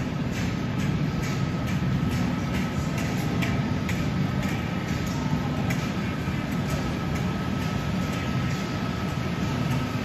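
Model train running on a ceiling-hung track: light, irregular clicking from the diesel locomotive and cars on the rails. Under it runs a steady low hum with a thin steady high tone.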